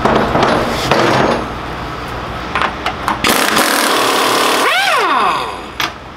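Pneumatic impact wrench hammering on a go-kart's rear wheel nut for about two seconds, its pitch rising and then falling as it winds down. A loud clatter at the start.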